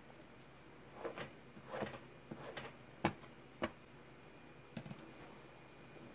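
Folding knife stabbing and slicing the back of a firefighting glove on a cutting mat: a few short scrapes, then two sharp taps about half a second apart, then softer scuffs. The blade is being tested against the glove's cut- and puncture-resistant layers.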